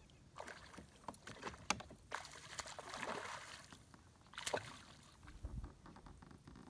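Faint water splashing and sloshing against a kayak as a hooked bowfin is reeled up to its side, with a few sharp knocks, the loudest about four and a half seconds in.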